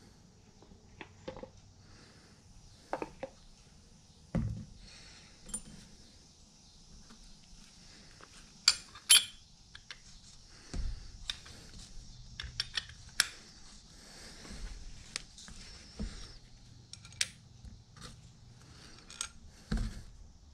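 Scattered clicks, taps and clinks of metal parts and hand tools being handled while an old Proto aluminum 3/4-inch drive ratchet is reassembled. The loudest are two sharp clinks in quick succession about halfway through.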